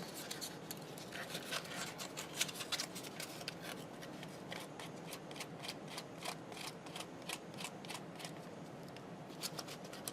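Quick, irregular scraping strokes across hard plastic, abrading dried hot-glue dots on a homemade plastic drink lid.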